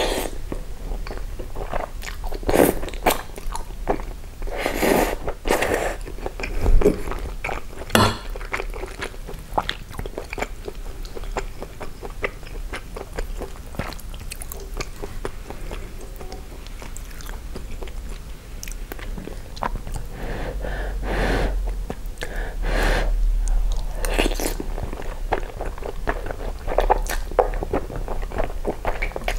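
Close-miked eating sounds: spaghetti in tomato sauce with sausage slices and melted cheese being drawn into the mouth and chewed, with irregular wet mouth clicks and smacks.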